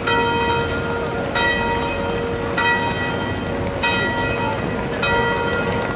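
A single church bell tolling, struck about every 1.2 seconds, five strokes in all, each stroke ringing and fading before the next, over a steady hum of the bell between strokes.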